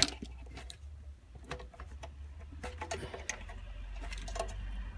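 Wiring harness and plastic plugs being handled and connected at a car audio amplifier: scattered light clicks and rustles of wire. A low steady hum grows from about three seconds in.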